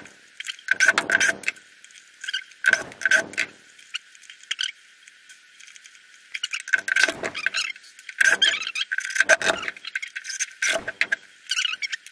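Several short, irregular bursts of rubbery squeaking and rustling from a pump wedge's rubber hand pump and hose being worked.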